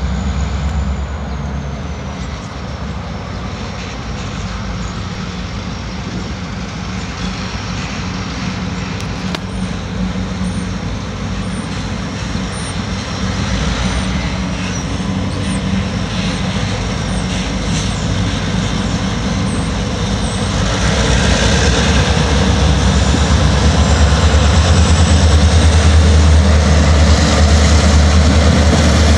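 Great Lakes Central diesel locomotives approaching with a steady low engine rumble that grows louder, getting loudest about three-quarters of the way through as the units pass close by.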